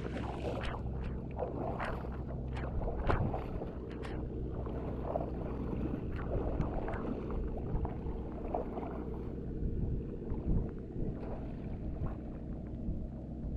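Muddy paddy water splashing and sloshing as a man wades through it and works a fishing net by hand, with a run of sharp splashes in the first few seconds and scattered ones after. A steady low rumble runs underneath.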